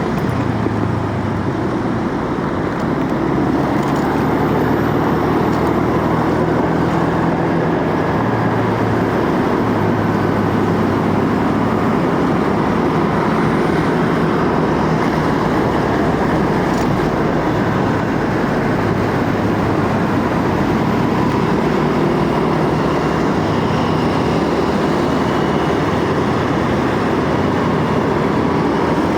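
Motorcycle on the move: wind rushing over the microphone, with the engine's hum shifting in pitch every few seconds underneath.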